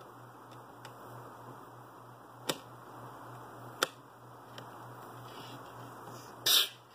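Sharp clicks and ticks of small parts and tools being handled on a workbench while LEDs are wired: two distinct clicks about a second apart, a few fainter ticks, then a louder short noise near the end. A steady low hum runs underneath.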